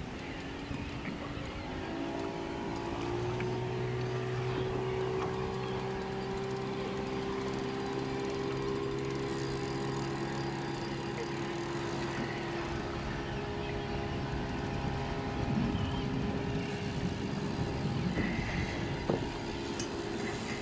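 Boat motor running at low speed, a steady hum that comes in about two seconds in, rises a little in pitch, and fades out near the end, with wind on the microphone.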